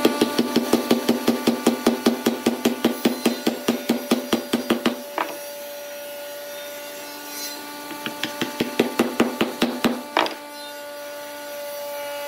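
Wooden mallet tapping shaped wooden plugs down into holes in a pine block: quick, light knocks about seven a second for some five seconds, then a pause and a second short run of taps about eight seconds in. A steady hum runs underneath.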